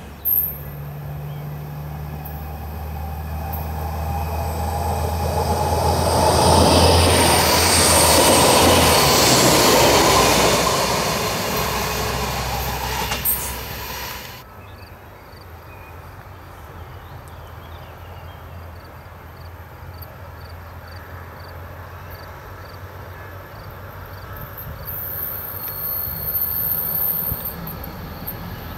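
A class 622 (Alstom Coradia LINT) diesel railcar passes close by with engine hum and wheel noise, swelling to a peak about eight seconds in. Its pitch drops as it goes past and the sound fades away. After a cut about fourteen seconds in, there is quieter open-field sound, and another train can be heard approaching in the distance.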